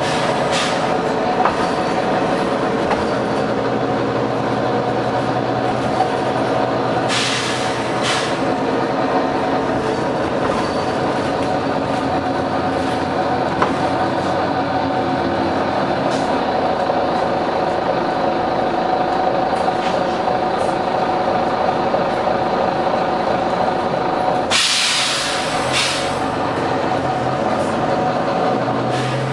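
Volvo B9TL double-decker bus running, its diesel engine droning steadily, with bursts of air hissing from its compressed-air system: a short hiss about half a second in, a longer one about a quarter of the way through, and the loudest near the end.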